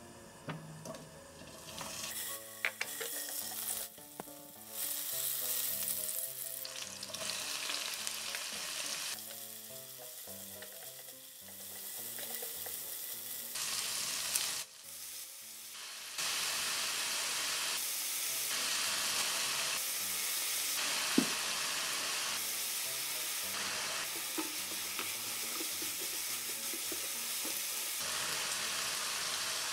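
Sliced garlic and dried baby octopus sizzling in oil in a nonstick pan as they are stir-fried with a spatula, with a few sharp taps of the spatula on the pan. About halfway through, soy sauce goes into the pan, and from then on the sizzle is louder and steadier.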